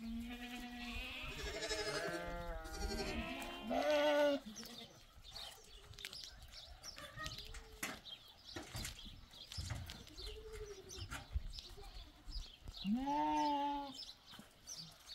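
Goat kid and lamb bleating: a run of overlapping calls in the first few seconds, a few fainter bleats in the middle, and one long, loud bleat near the end.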